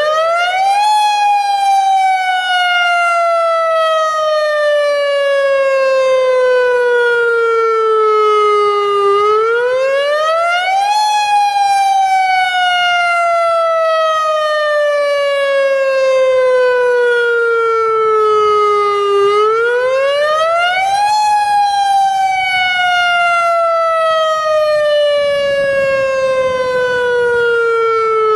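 AHAB tsunami warning siren sounding its wail, the tone used in real tsunami emergencies and sounded here as a drill. Each cycle rises quickly in pitch, then falls slowly over about eight seconds, three times over.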